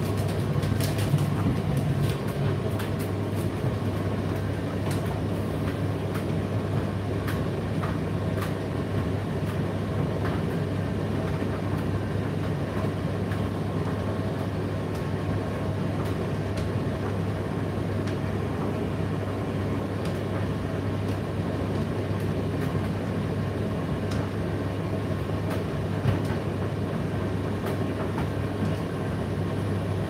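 Indesit IDC8T3 condenser tumble dryer running mid-cycle: a steady low hum and drum rumble, with scattered light clicks throughout.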